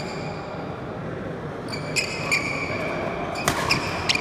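Badminton rally on a wooden indoor court: court shoes squeak on the floor and rackets strike the shuttlecock in a few sharp hits. The loudest hit comes about three and a half seconds in, over the echo of the hall.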